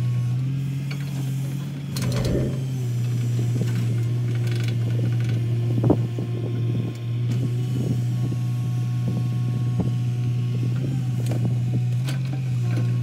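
L&T-Komatsu crawler excavator's diesel engine running steadily under load while it loads a tipper truck, with scattered clanks and knocks from the bucket and from earth dropping into the steel truck bed; one sharp knock about six seconds in.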